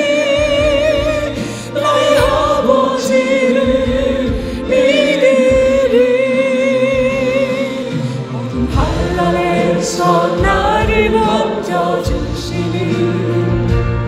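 Gospel song: a sung melody holding long notes with vibrato over instrumental accompaniment.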